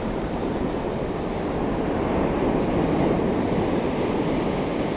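Ocean surf washing onto the beach, mixed with wind on the microphone: a steady rush that swells a little midway.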